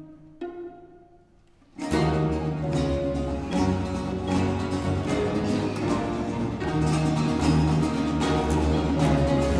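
Early-music ensemble: a few sparse plucked cello notes, a brief hush, then about two seconds in the full band comes in loudly with rhythmic strumming on baroque guitars over bowed strings and cellos, in the manner of a tarantella.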